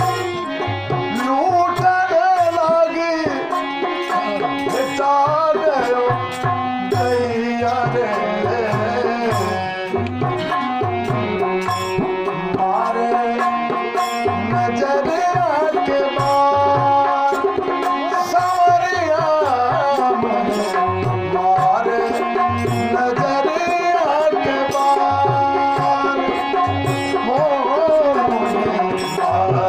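Tabla playing a steady rhythm in teen taal, with deep repeated bass-drum strokes, under a sustained melody line that glides between notes: an instrumental passage of a folk devotional song.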